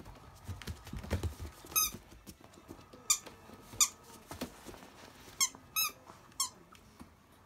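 Small yellow squeaky toy ball squeaking about six times in short, high squeaks as Akita puppies bite down on it, with soft thuds of paws moving early on.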